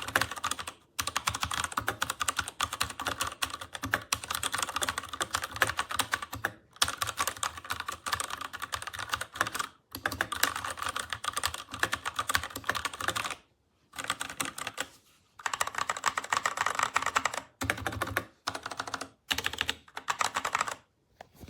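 Fast typing on a MageGee 75% mechanical keyboard with red linear switches: dense runs of rapid keystrokes lasting a few seconds each, separated by brief pauses.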